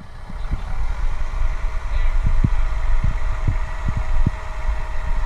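Kubota compact tractor's diesel engine idling, played back through computer speakers, with a steady low rumble and about eight irregular low thumps.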